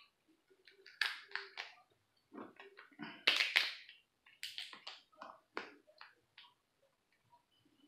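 Cooked lobster shell cracking and crunching as it is pulled apart by hand: a run of irregular sharp snaps and crunches, loudest a little past three seconds in, trailing off to small clicks near the end.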